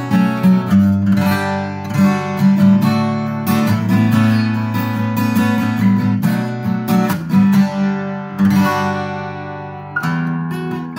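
Tokai Cat's Eyes CE-250 steel-string dreadnought acoustic guitar, strung with 11-gauge strings, played by hand: a run of picked notes mixed with strummed chords. At about eight and a half seconds a chord is left to ring out and fade, and playing picks up again at about ten seconds.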